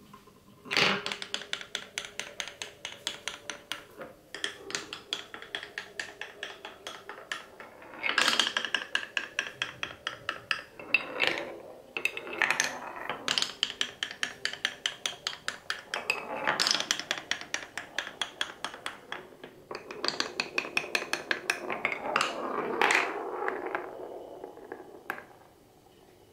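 Glass marble rolling down a wooden marble run's wave-shaped tracks, clattering over the bumps in quick runs of clicks, several a second. The runs break off briefly every few seconds as it moves between track pieces.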